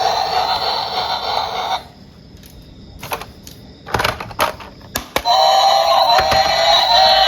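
Tinny electronic tune from a battery toy's sound chip playing, breaking off about two seconds in. A few sharp clicks and knocks follow, and the tune starts again a little past five seconds.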